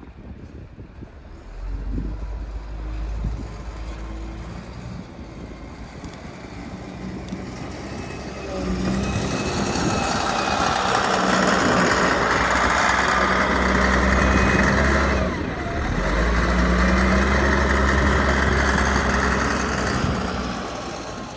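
An engine running steadily, getting much louder about a third of the way in, dipping briefly, then running on before fading near the end.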